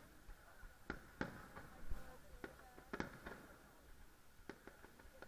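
Aerial fireworks bursting, a string of sharp bangs at uneven intervals, about one a second.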